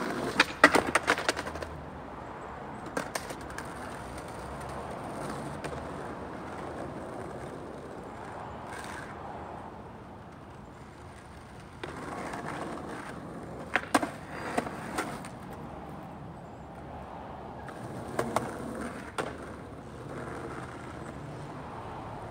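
Skateboard wheels rolling on asphalt, with sharp clacks of the board popping and landing on the ground during trick attempts: a quick burst of clacks at the start, and more clusters twice later on.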